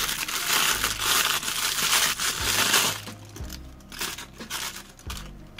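Thin clear plastic bag crinkling as a watch is unwrapped from it, loud for about the first three seconds and then fainter and patchier. Soft background music with steady low notes plays underneath.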